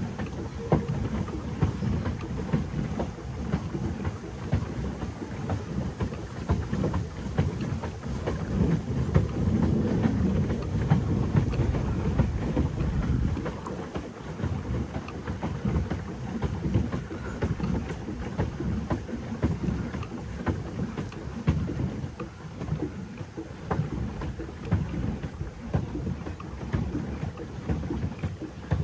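Pedal boat under way on the water: a loud, uneven low rumble of water noise and wind buffeting the microphone.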